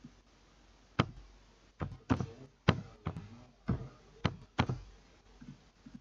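Computer keyboard keys and mouse buttons being pressed as CAD commands are entered: about seven sharp, irregular clicks with a dull desk thud, spread over roughly four seconds.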